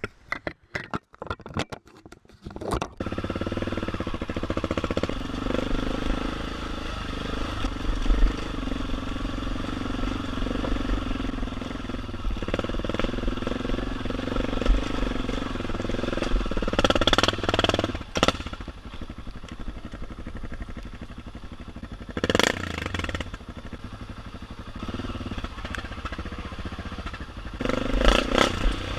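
BMW F650GS motorcycle engine running steadily under way on a rough dirt track. The sound is choppy and broken for the first few seconds, and a few short bursts of noise are heard later on.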